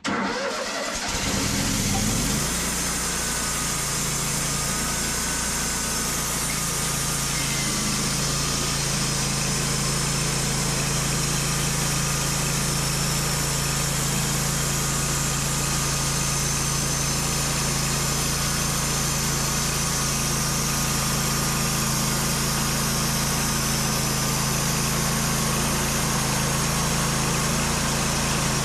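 A sawmill's gas engine starting up and settling over about two seconds into a steady run, then running at a constant speed while the mill cuts through a black oak log.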